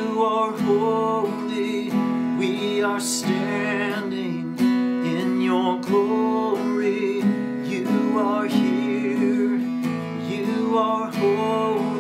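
Acoustic guitar strummed steadily while a man sings a slow worship song.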